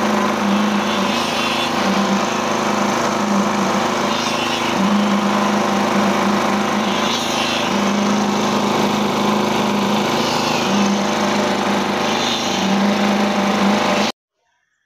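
Small engine driving a concrete poker vibrator, running steadily while the vibrating shaft is worked through freshly poured concrete. Its hum swells and fades every second or two, and the sound cuts off suddenly near the end.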